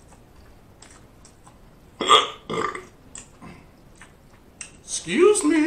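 Mouth sounds of a man eating crispy fried chicken skin: faint wet clicks and smacks throughout, broken by two short loud burps about two seconds in. Near the end comes a longer voiced sound that rises in pitch and then holds.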